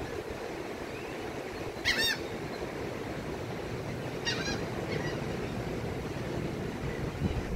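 Steady wash of surf breaking on the beach, with a bird calling in two short bursts: a louder one about two seconds in and a fainter one around four and a half seconds.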